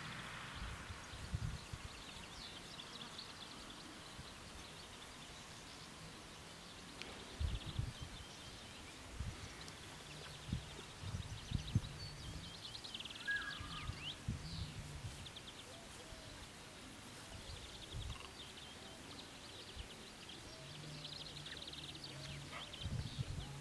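Outdoor ambience of small birds chirping and trilling on and off. Irregular low gusts of wind buffet the microphone, and these are the loudest sounds.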